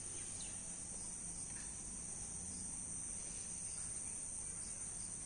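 Insects chirring in a steady, high-pitched, unbroken drone.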